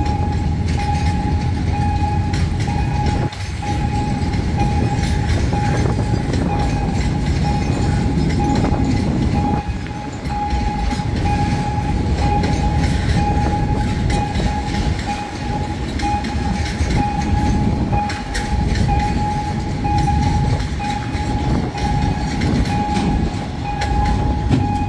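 Loaded container flat wagons of a freight train rolling past at low speed, a steady rumble with wheels clacking over the rail joints and crossing. A steady high warning tone from the level-crossing signal sounds over it.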